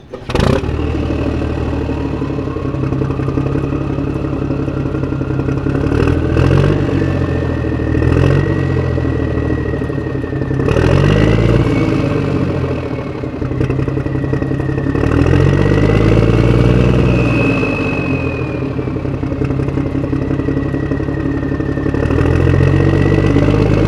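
Motor running with a high whine that rises over the first few seconds and then wavers, over a low engine-like hum that swells and falls every couple of seconds.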